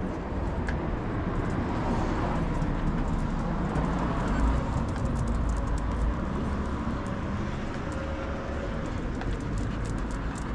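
Street traffic noise: a steady hum of vehicles on the road, swelling slightly about halfway through as one passes.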